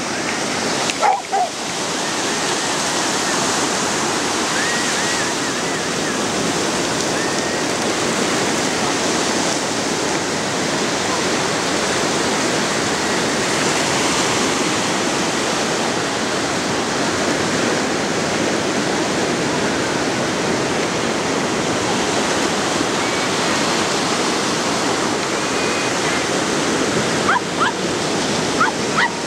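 Steady wash of small surf waves breaking in the shallows, with a few short dog barks about a second in and again several times near the end.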